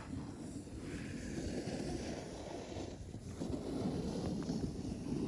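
Wind rumbling on the microphone, with swells of scraping hiss from skis and snowboards sliding over snow, about a second in and again past the middle.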